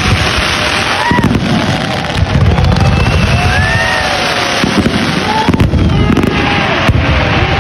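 Fireworks display going off in a dense, continuous run of bangs and crackling as many shells and ground-launched comets fire and burst, with short rising-and-falling tones over the noise.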